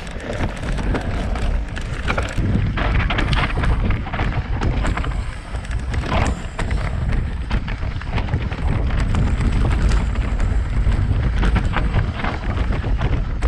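A full-suspension BH Lynx mountain bike descending rough, rocky singletrack: the tyres and frame rattle and clatter over stones in quick, uneven knocks, under a steady rumble of wind on the microphone.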